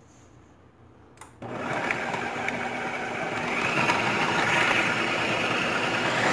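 Food processor switched on about a second and a half in, its motor running steadily with the blade chopping onion, mint and green chillies in the bowl. A small click just before it starts.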